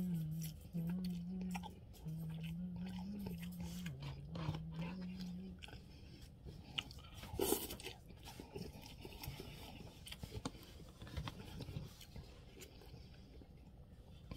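A person eating noodle soup: slurping noodles off a plastic fork and chewing, with one louder slurp about halfway through. For the first five seconds a low tone steps between a few notes under the eating.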